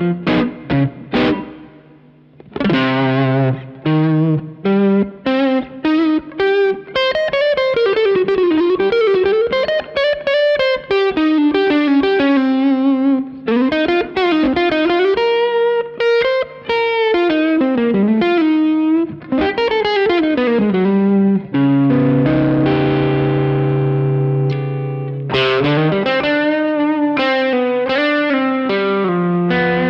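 B&G Little Sister electric guitar through a Suhr Badger 35 amp driven into overdrive, with no pedals and added reverb, playing a single-note lead with string bends and vibrato. Partway through it lets a chord ring out for a few seconds, then returns to picked notes.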